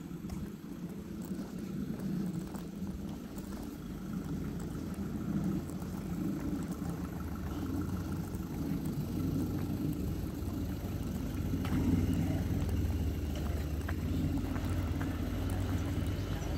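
Low engine rumble of a motor vehicle, with a steady hum that grows stronger and a little louder in the second half, over faint scattered clicks.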